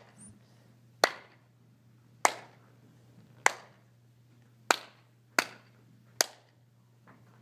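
Single sharp hand claps keeping a slow count for dancers, about one every second and a quarter, with the last few coming quicker; each clap rings briefly in the room.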